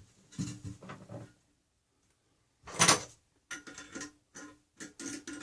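Wrench tightening the nuts on a toilet's floor bolts: a series of short clicking, scraping strokes, the loudest about three seconds in.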